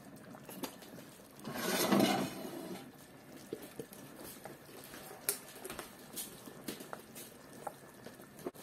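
A large stainless-steel pot of sauerkraut and potato soup bubbling at a boil, with faint scattered pops and crackles. About two seconds in, a louder brief rustling noise swells and fades.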